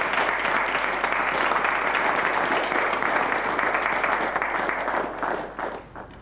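A small group of people clapping their hands in applause, a dense patter of claps that tapers off and stops near the end.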